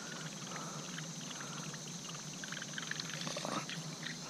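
Steady low hum of a bow-mounted electric trolling motor moving the boat, under a steady high drone of evening insects, with a few faint clicks and small water sounds, a little cluster of them about three seconds in.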